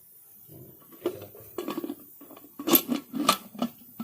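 Metal pressure cooker being handled: a run of clinks and knocks, the two loudest close together about three seconds in, some ringing like metal on metal.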